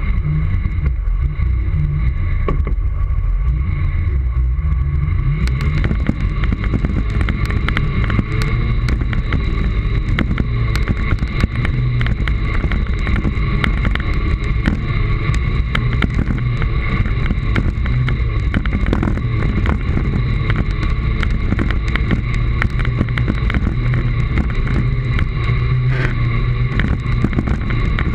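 Segway personal transporters riding over a rough dirt and gravel track: a heavy rumble of wheels and vibration, with a steady high whine. From about five seconds in, frequent sharp rattling clicks come from bumps in the track.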